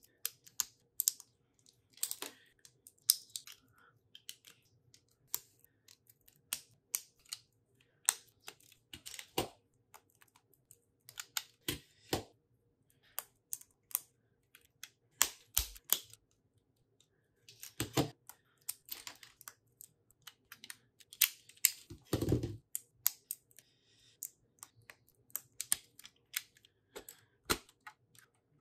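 Plastic Lego bricks clicking as they are snapped together and picked from a loose pile of pieces: irregular sharp clicks and light rattles, with a duller knock about two-thirds of the way through.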